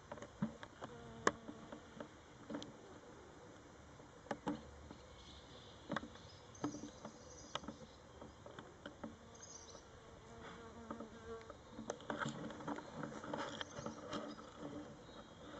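Flying insects buzzing faintly in short passes of a second or two, a low hum that comes and goes, with scattered sharp clicks.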